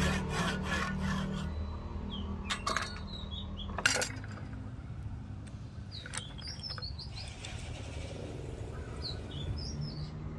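A hand saw makes its last few strokes through a thin wooden strip held in a bench vise. A few sharp knocks follow around the middle as the saw and the wood pieces are set down on the bench, with birds chirping in the background.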